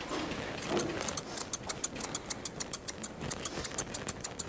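Grooming scissors cutting a West Highland white terrier's facial hair: quick, regular snips, about six a second, starting about a second in.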